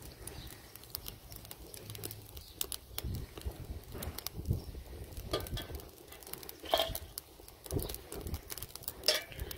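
Fine dry twigs and fatwood catching in a small wood fire, crackling with many quick sharp pops and a couple of louder snaps about seven and nine seconds in.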